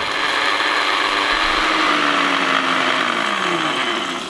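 Electric countertop blender grinding whole allspice berries dry into a coarse powder, a loud steady grinding whir. The motor's pitch sinks over the last couple of seconds and the sound stops just before the end.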